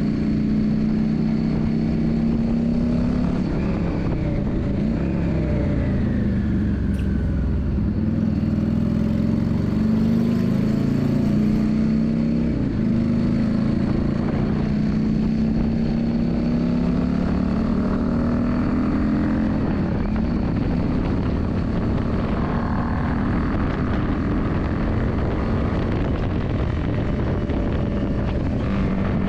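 Yamaha Drag Star 400 V-twin motorcycle engine running under load. Its pitch climbs steadily, drops sharply about twelve seconds in and again about twenty seconds in, then climbs again, over a steady rush of wind and road noise.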